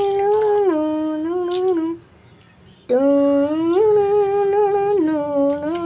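A person humming a short tune without words, the same phrase twice with a pause of about a second between: steady held notes that step up, then down, then up a little.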